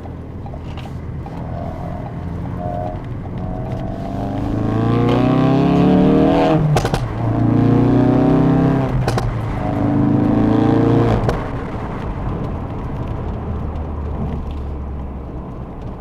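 Ford Focus RS's turbocharged 2.3-litre four-cylinder exhaust under hard acceleration, heard from under the car. The revs rise in three pulls through the gears, with short sharp cracks between the first pulls, then settle back to a steady cruise.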